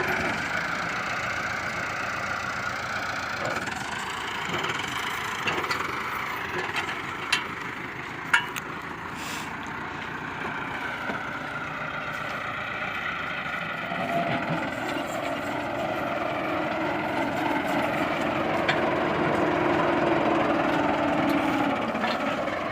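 Heavy machine engine running steadily, with a couple of sharp knocks about seven and eight seconds in.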